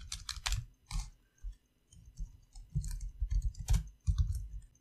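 Typing on a computer keyboard: irregular runs of key clicks with dull thuds, in two bursts with a short lull in between.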